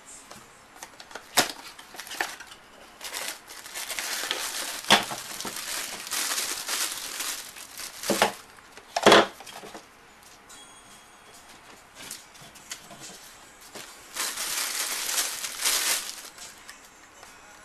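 Crinkling and rustling handling noise with scattered sharp clicks and knocks. The rustling comes in two longer stretches, one a few seconds in and one near the end.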